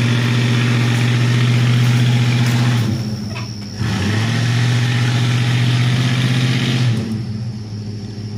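A motor vehicle engine held at steady raised revs for about three seconds, easing off briefly, then held up again for about three more seconds before dropping back.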